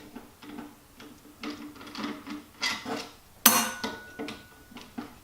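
Light clicks and knocks of metal tools and parts being handled on an aluminium-cased drill during disassembly, with one sharper metallic clank about three and a half seconds in that rings briefly.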